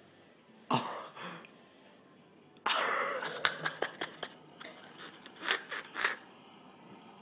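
A person coughing and gagging on a mouthful of raw egg. There is a short cough under a second in, a louder splutter about two and a half seconds in, then a run of short coughs and choking noises.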